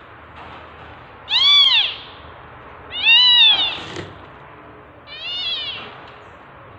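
Newborn kitten mewing three times, each call high-pitched and rising then falling; the second is the loudest and the third is shorter and softer.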